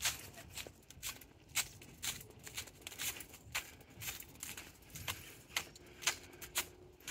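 Footsteps of a person walking on a trail at an even pace of about two steps a second, each step a short crunch.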